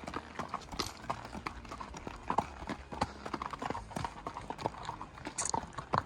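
Horses walking on a rocky trail, hooves clopping and clacking on stone in an uneven rhythm of several strikes a second.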